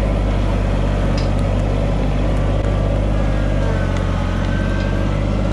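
Kubota's engine running steadily under way, a low even drone with no breaks.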